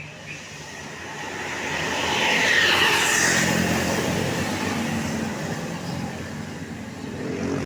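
A bus driving past on the road: engine and tyre noise swell to a peak about three seconds in, then fade slowly.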